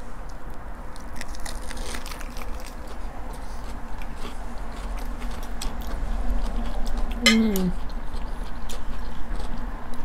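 Close-miked eating: chewing and crunching of lettuce-wrapped burgers, with small clicks of a fork against a plate. A short falling "mm" from one of the eaters about seven seconds in.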